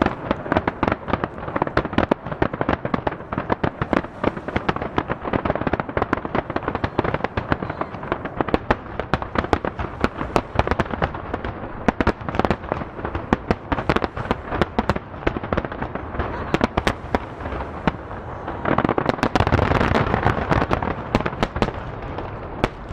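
Rapid barrage of aerial firework shells bursting over the sea, many sharp bangs a second running into one another, echoing off the nearby hills. The bangs swell into a louder rumble about nineteen seconds in.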